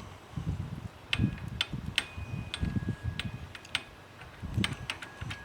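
Small metal parts of a car seat gearbox clicking and tapping as they are handled and pressed together, a dozen or so irregular clicks over dull handling thumps. A few of the taps leave a short, clear metallic ring, about two seconds in and again near the end.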